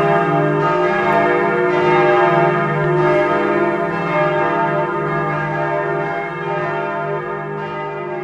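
Church bells ringing in a full peal, several bells overlapping, slowly fading toward the end.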